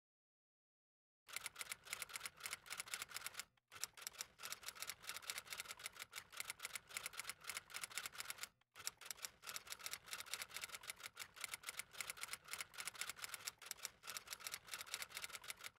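Typewriter keys clacking in rapid, continuous typing, synced as a sound effect to text being typed out. It starts about a second in and breaks off briefly twice.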